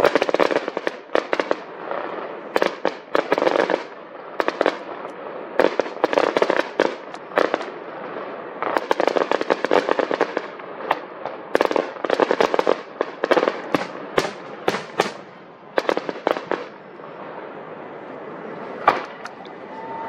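Fireworks going off: repeated volleys of rapid, sharp pops and crackles, many per second, thinning out near the end with one last louder bang.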